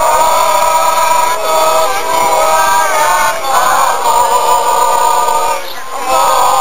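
A crowd of protesters singing together in long held notes, with short breaks for breath about three seconds in and again near the end.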